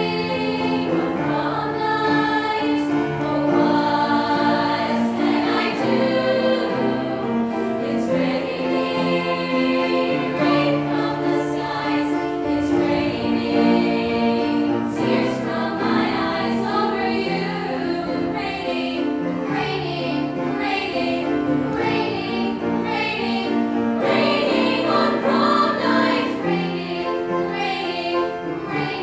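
Young women's chamber choir singing in harmony, moving through held chords.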